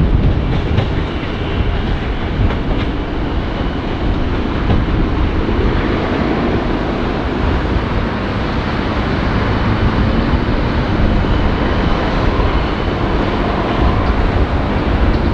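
NSW TrainLink XPT diesel power car working, with its engine running loudly and steadily as the train rumbles along the track.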